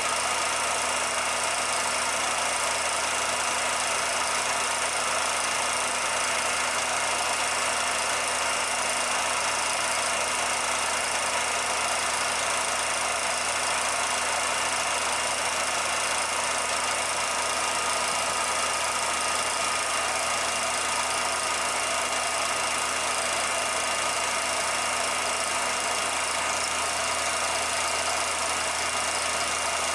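Steady, unchanging mechanical hum and hiss, a constant running-machine noise with a few fixed hum tones and no changes or separate events. It is not the steam locomotive, since the film itself is silent.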